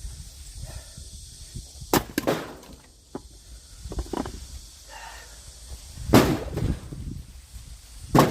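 Axe blows splitting firewood: a series of sharp cracks as the blade strikes and the logs split, the loudest about six seconds in and another near the end.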